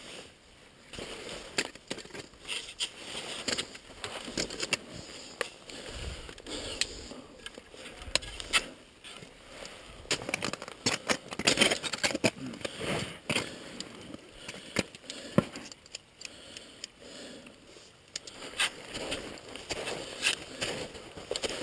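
Crampon steps crunching in snow and scraping on rock, mixed with rope and climbing gear rustling and clinking; an irregular run of crunches, scrapes and clicks.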